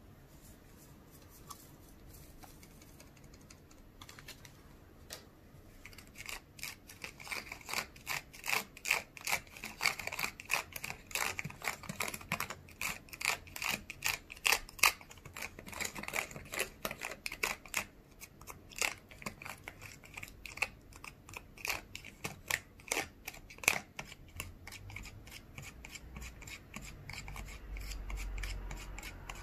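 Small plastic spoon stirring and scraping in a thin plastic tray, mixing candy-kit powder and water into a thick red sauce: a fast, uneven run of light clicks and scrapes that starts about six seconds in.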